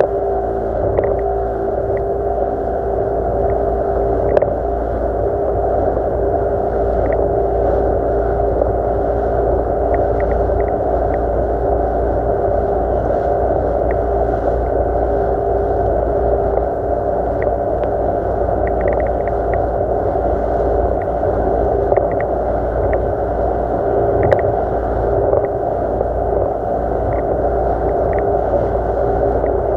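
Yamaha 40 hp two-stroke outboard motor running at a steady cruising speed, a constant drone, with faint brief ticks now and then.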